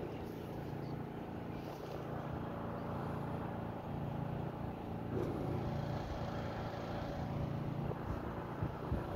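A steady low machine hum with wind rumbling on the microphone.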